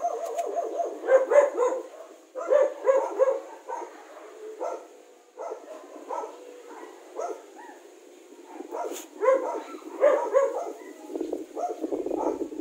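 A dog barking repeatedly, in clusters of short barks with quieter gaps between.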